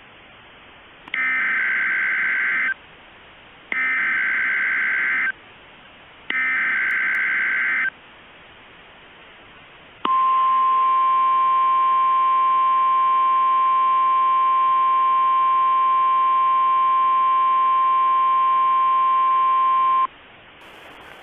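Emergency Alert System header: three bursts of digital data tones, each about a second and a half long, then a single long steady alert tone lasting about ten seconds that cuts off abruptly. Together they are the coded header and attention signal that open an emergency alert broadcast.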